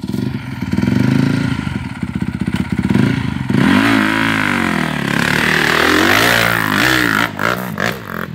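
Dirt bike engine running close by, steady at first, then revving up and down over and over from about halfway through as the throttle is worked.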